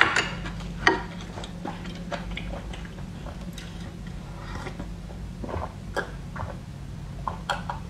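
Soft eating and drinking mouth sounds: chewing, then swallows from a glass of juice, heard as scattered short clicks over a low steady hum.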